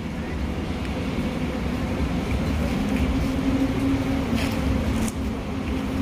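Steady low mechanical hum with a constant pitched tone, like an engine or motor running.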